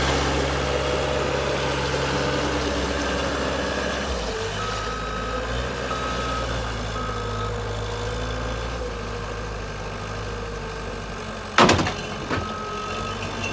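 Skid steer engine running steadily while its reversing alarm sounds a string of short, evenly spaced beeps, pausing and then starting again near the end. A single loud bang comes about eleven and a half seconds in.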